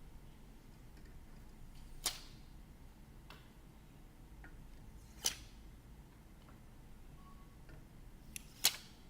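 A few sharp, hard clicks spaced about three seconds apart, with a quick double click near the end and fainter ticks between, over a low steady hum.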